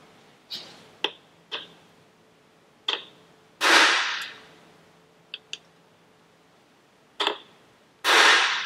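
Hammer striking a steel number punch to stamp identification numbers into connecting-rod big-end caps. Several light taps set the punch, and two hard blows about four and a half seconds apart each ring out with a short echo.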